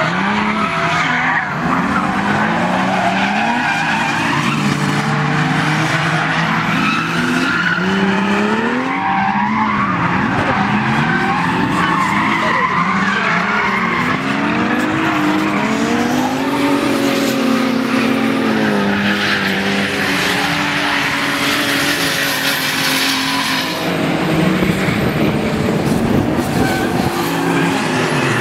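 Toyota Supra drift cars sliding through corners, engines revving up and down in pitch over the constant screech of tyres spinning and skidding.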